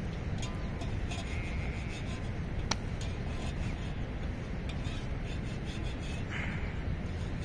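Outdoor ambience: a steady low rumble, with one sharp snap about two and a half seconds in.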